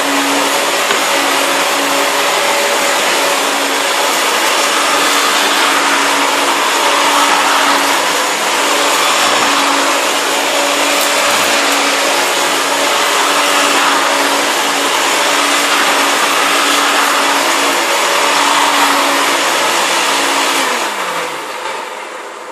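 Hoover Turbopower Junior U1102 upright vacuum cleaner running on carpet: a steady motor hum over a rush of air, picking up fluff and cat litter. Near the end it is switched off and the motor winds down, its pitch falling as the sound fades.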